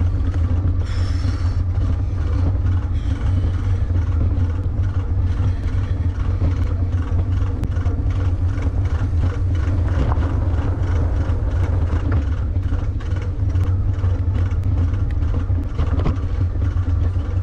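Riding noise from a WALLKE X3 Pro eBike on a grassy trail: a steady low rumble with many small clicks and rattles.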